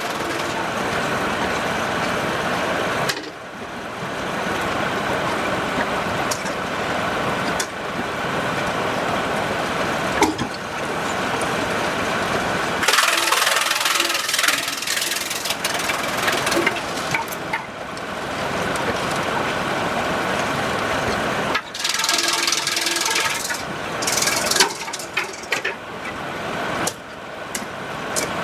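Sawmill machinery running with a loud, steady mechanical noise. The sound changes abruptly several times, as from one machine to another.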